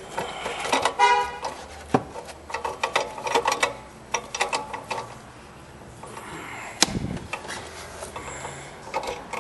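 Metal hand tool clinking and knocking against the exhaust and engine parts as an oxygen-sensor wrench is worked toward the sensor. A short horn-like toot about a second in and a heavier clunk near seven seconds in.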